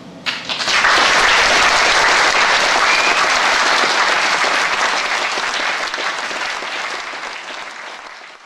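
Audience applauding at the end of a live set: it breaks out suddenly, is at full strength within about a second, and slowly dies away near the end.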